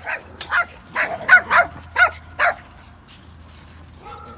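A dog barking: seven quick barks in about two and a half seconds, then it stops.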